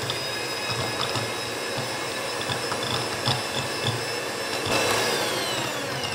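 Electric hand mixer beating softened butter in a glass bowl: a steady motor whine, with the beaters ticking against the glass now and then. Near the end the whine starts to wind down in pitch and loudness.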